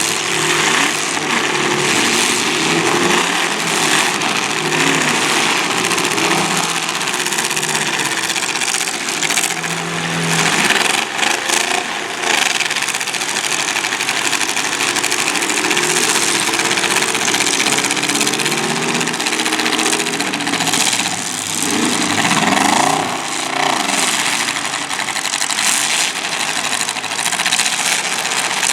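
Demolition derby car engines revving and running hard, their pitch rising and falling, with a few sharp bangs about a third of the way in.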